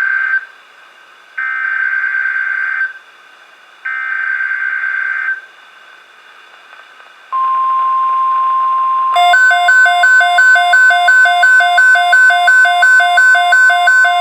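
NOAA Weather Radio Emergency Alert System header: the tail of one SAME digital data burst, then two more buzzy, screeching bursts about a second apart over radio hiss. A steady single-pitch 1050 Hz warning alarm tone begins about seven seconds in, and about two seconds later an alternating high-low beeping alarm, about two and a half beeps a second, sounds along with it.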